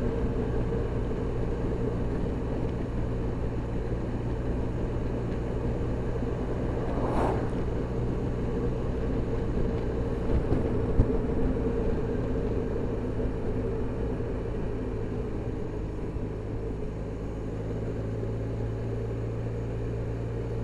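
Touring motor scooter running steadily at cruising speed, its engine hum mixed with wind and road noise. There is a brief swell of noise about seven seconds in and a single sharp tick about eleven seconds in.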